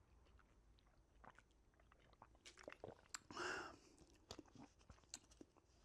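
Faint mouth sounds of someone drinking a strawberry drink from a bottle: small sips, swallows and wet clicks, with a louder half-second rush about three and a half seconds in.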